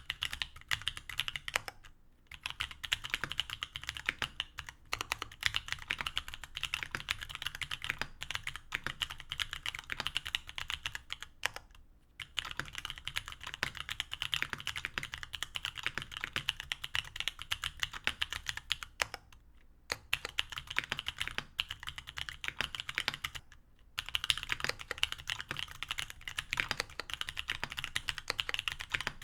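Mechanical keyboard with stock C³Equalz X TKC Kiwi tactile 67g switches, an aluminium plate and GMK keycaps being typed on in fast, continuous runs of keystrokes. The runs break off in a few short pauses, about two seconds in, near twelve seconds, near twenty seconds and near twenty-four seconds.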